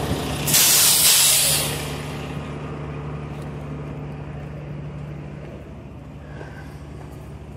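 Truck air brakes letting out a loud hiss of air for about a second, shortly after the start, as the brakes are set and held. A truck engine idles steadily underneath.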